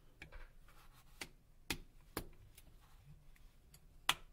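Nokia Lumia 925 back cover snapping onto the phone's frame as it is pressed down, a series of sharp, faint clicks with the loudest near the end.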